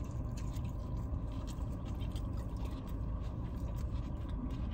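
Steady low rumble inside a parked car's cabin, with faint, irregular clicks of two people chewing crisp taco bites.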